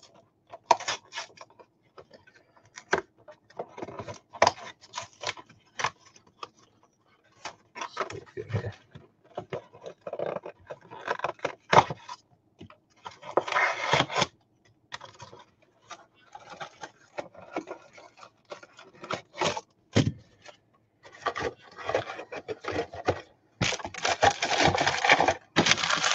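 Hands opening a trading-card hanger box: a long run of crinkles, rustles and sharp clicks from the wrapper, cardboard and cards. The sounds come thicker around the middle and almost without a break near the end.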